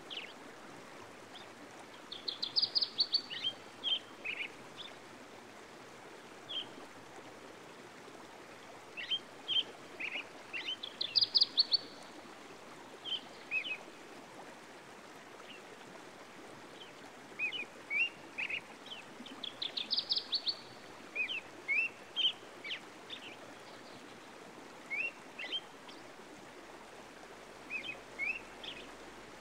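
Songbirds singing in a nature recording. A fast trill comes three times, about nine seconds apart, and is the loudest sound; scattered short chirps fall between the trills. Underneath runs a steady soft wash like running water.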